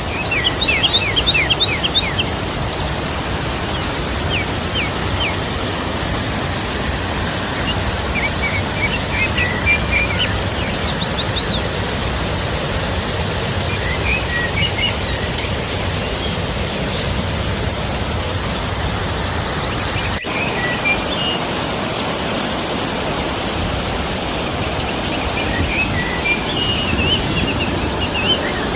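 A river swollen by rain, its water rushing steadily, with birds chirping now and then over it.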